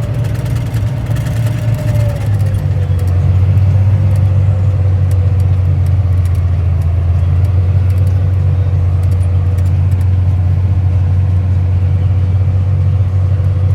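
Farm tractor engine running steadily, heard from inside the cab as a loud, even low hum with a thin steady whine above it.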